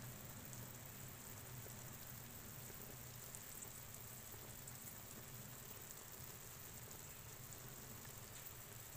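Faint steady hiss and light bubbling of a pot of pork hocks simmering in broth on a stove to tenderise, with a low hum underneath.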